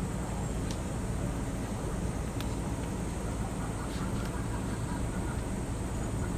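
Steady low rumbling background noise with a few faint clicks scattered through it; the cat's yowling has stopped.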